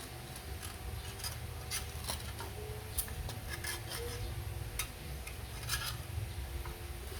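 Hand-tool work on STIHL 070 chainsaw parts: irregular rubbing and scraping with scattered light metallic clicks.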